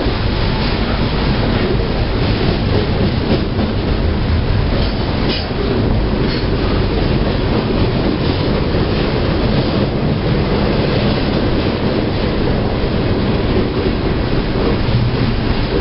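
Freight train rolling past at close range, a steady rumble of the cars with the wheels clicking over the rail joints.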